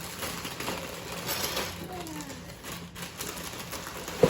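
Packaging being handled: crinkling and rustling with many small irregular clicks, and one sharp knock near the end.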